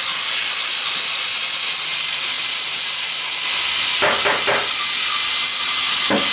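Aerosol spray can hissing steadily as it is sprayed. A few short knocks and clatters come about four seconds in and again just after six seconds.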